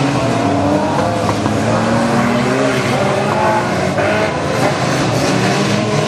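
A pack of fun-car racing cars, small hatchbacks, running together with their engines revving hard. Several engine notes overlap, rising and falling as the cars accelerate and lift off.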